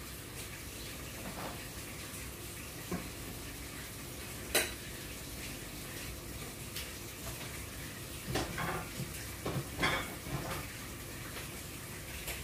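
Cooking oil heating in a pot over a gas burner, with a steady faint hiss. Over it come scattered crackles and pops: one sharp pop about four seconds in, and a cluster of them in the last few seconds.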